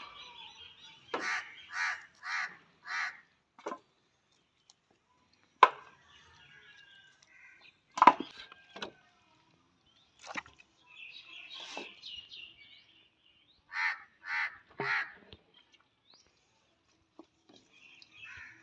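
A bird calling in two series: four short, evenly spaced calls about a second in and three more near the end. Two sharp knocks, the loudest sounds, fall between them.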